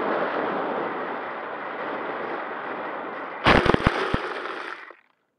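Air rushing past the onboard camera of an Avionik B-08 F5-B glider flying low. About three and a half seconds in comes a quick run of sharp thumps and scrapes as it belly-lands into long grass. The rushing stops about a second later as the glider comes to rest.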